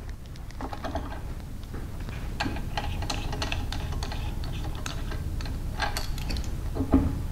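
Light, irregular metallic clicks and taps of a hand wrench and a belt grinder's contact wheel as the wheel is unbolted and worked off its axle.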